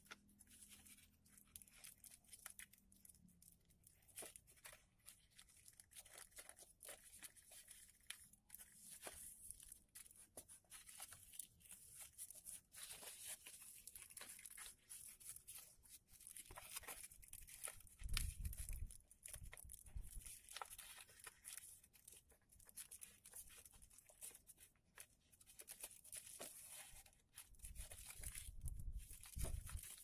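Faint rustling and crinkling of a creased sheet of origami paper being folded and flattened by hand, with a few dull bumps of the hands pressing on the table around the middle and near the end.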